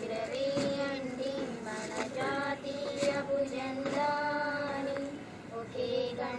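A group of girls and women singing together in unison, holding long notes with short breaks between phrases.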